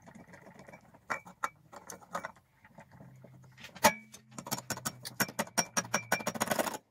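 Light metal-on-metal clicks and clinks from pliers and the clutch parts of a Kinetic moped as the clutch is worked loose, sparse at first with one sharper click before the middle, then a quick rattling run of clinks near the end as the clutch drum is worked by hand.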